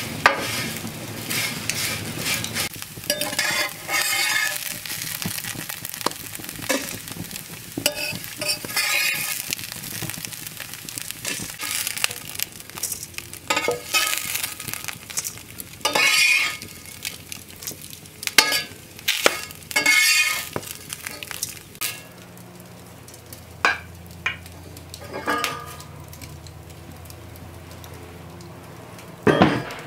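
Sliced onions sizzling in a skillet over an open fire, with a utensil scraping repeatedly against the pan as they are stirred and scraped out. A quieter stretch follows with a few sharp clinks of metal cookware.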